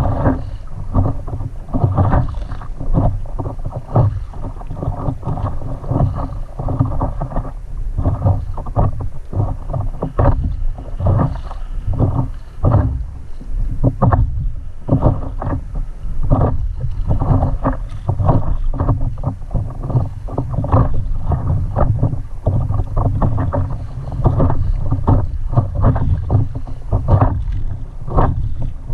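Water lapping and slapping against a stand-up paddleboard in light chop, an irregular run of short splashes a few a second, over a low wind rumble on the microphone.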